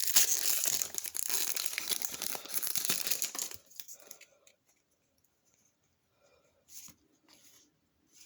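Pokémon card booster pack's foil wrapper being torn open and crinkled for about three and a half seconds, then a few soft rustles.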